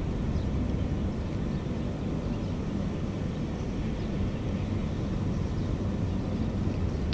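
Steady low rumble of distant engines, even and unbroken, with a faint hum in it.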